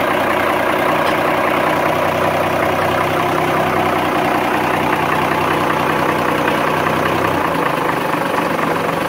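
Lehman 120 six-cylinder marine diesel idling steadily, heard close up in the open engine bay; the broker judges it smooth, with no abnormal sounds. The engine note shifts about seven seconds in as the throttle is adjusted.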